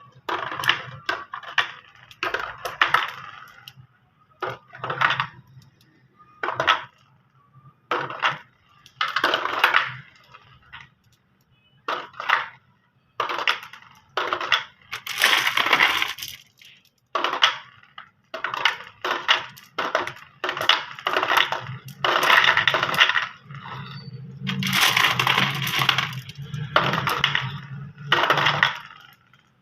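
Marbles rolling and clattering down a marble race track, in repeated bursts of rapid clicks and clinks separated by short pauses.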